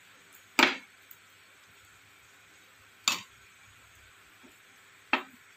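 A metal ladle knocking three times against an aluminium pressure cooker pot, each a sharp clank with a brief ring, the first the loudest.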